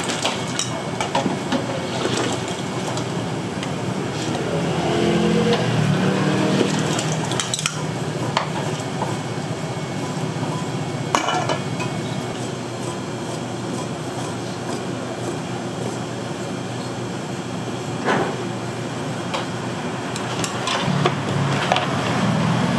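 Metal spoons and a ladle clinking against ceramic soup bowls as they are filled and moved, scattered sharp clinks over a steady background noise.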